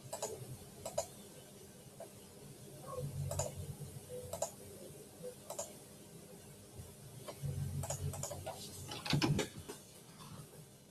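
Faint scattered clicks and taps at irregular gaps, with two short stretches of low rumble; a quick cluster of clicks about nine seconds in is the loudest.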